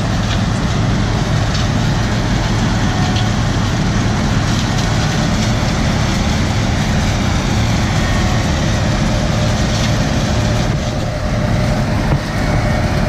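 Heavy diesel farm-machinery engine running steadily, a constant low drone with no break.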